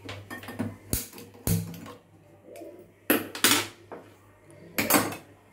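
Metal cookware being handled on a gas stove: a small pan set down on the burner grate, with a few sharp clanks and knocks. The clanks come about a second in, at a second and a half, twice around three seconds, and once near the end.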